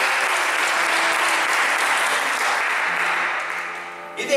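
Congregation applauding, a dense even clapping that thins and fades away in the last second.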